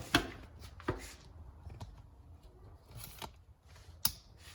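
Handling noise from a plastic infant car seat base and its LATCH straps being positioned on a car's back seat: a few sharp knocks and clicks, the loudest at the very start and just after four seconds, with soft rustling between them.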